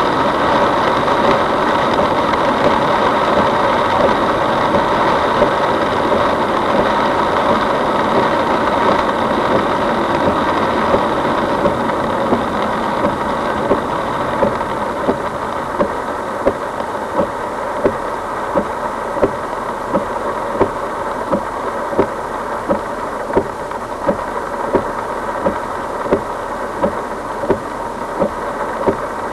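Car driving in typhoon wind and heavy rain, heard from inside the cabin: a steady rush of rain and road noise over the engine. From about halfway on, a sharp regular click sounds roughly every 0.7 s.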